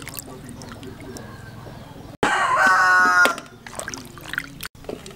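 A rooster crows once, loudly, for a little over a second, starting about two seconds in. Before it comes faint sloshing of water from hands washing cut green bell pepper in a plastic basin.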